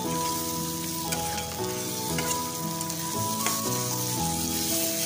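Onions, tomato and hog plums with ground spices sizzling in hot oil in a steel kadai, with a spatula scraping and clicking against the pan as the mixture is stirred. Background music plays over it.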